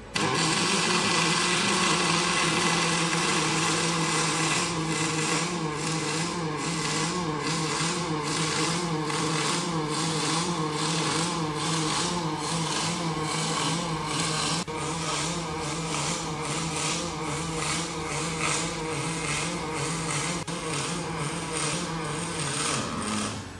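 Robotic arc welding on steel: a steady crackling arc with a low hum, pulsing regularly a little faster than once a second. It starts abruptly and cuts off shortly before the end.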